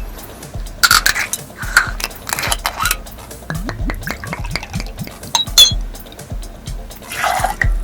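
Dishes and cutlery clinking and clattering against each other in a run of short knocks and scrapes, with a brief ringing clink about five and a half seconds in.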